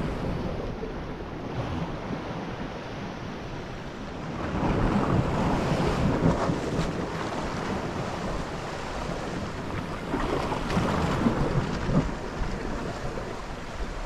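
Sea surf washing against shore rocks, with wind buffeting the microphone; the wash swells louder about four and a half seconds in and again around ten seconds in.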